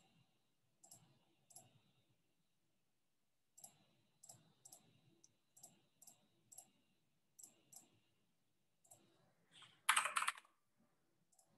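Faint, irregular computer keyboard keystrokes, single clicks a fraction of a second to a second apart, with a louder quick flurry of keys about ten seconds in.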